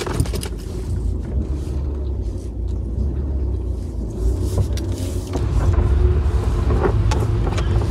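Car engine idling, heard from inside the cabin as a steady low rumble, with a few light knocks as things are moved about on the seats.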